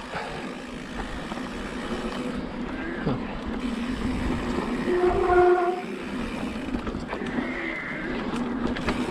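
Specialized Turbo Levo electric mountain bike ridden along a dirt singletrack: a steady hum from the mid-drive motor under the rattle of tyres and drivetrain on the trail. About five seconds in a brief squealing tone rises above it, the loudest moment.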